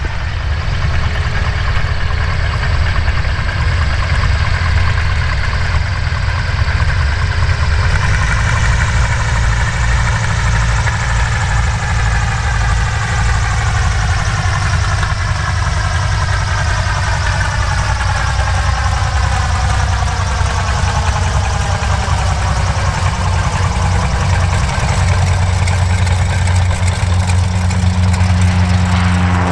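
Boeing Stearman PT-13D Kaydet's nine-cylinder Lycoming R-680 radial engine running steadily at low taxiing power as the biplane rolls past. The upper part of the sound sweeps slowly lower over the middle of the stretch.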